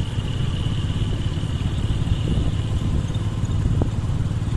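Steady low rumble of engine and road noise from a vehicle moving along a highway in traffic, with a thin steady high whine.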